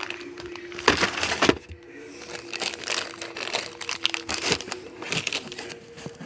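Cardboard firework boxes and packaging being handled and shoved into a packed closet: irregular rustling, crinkling and scraping, with two loud knocks about a second in.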